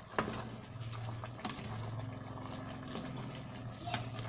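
Cassava leaves simmering in coconut milk in a stainless steel pot, bubbling over a low steady hum. A wooden spatula knocks against the pot a few times as the leaves are stirred.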